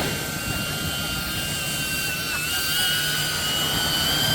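A motor's steady high whine over a low rumble, its pitch wavering slightly about two seconds in.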